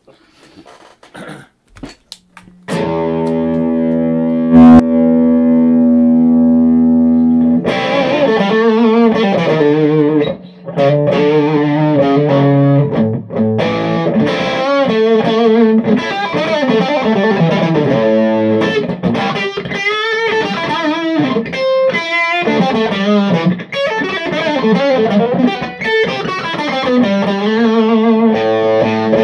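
Yamaha SA-800 semi-hollow electric guitar played through a Bad Cat Cub III 15R hand-wired tube combo amp. After a couple of quiet seconds a chord rings out for about five seconds, then quick single-note lead lines follow.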